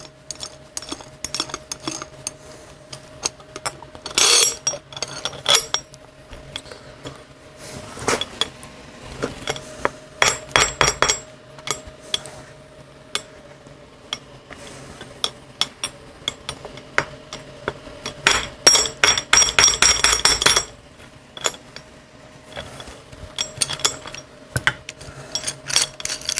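Steel parts clinking and clattering as a threaded-rod bearing installer, with its washers and nut, is handled and re-set on a Harley-Davidson wheel hub resting in a metal bowl. Bursts of quick ringing clinks come about four seconds in, around ten seconds and, longest, around eighteen to twenty seconds, with single clicks in between.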